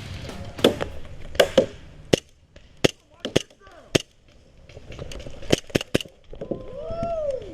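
Airsoft pistols being fired, about a dozen sharp cracks spread irregularly over the first six seconds, some in quick doubles, as two players trade shots. A short shout near the end.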